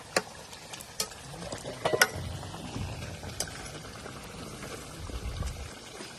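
Cooking sounds: a steady hiss with stirring, broken by sharp clicks near the start and about two seconds in.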